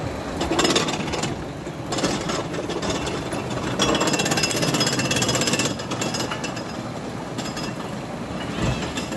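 Small steel-track roller coaster train rattling and clacking along its track, a fast continuous metallic clatter that swells in surges, loudest a little past the middle.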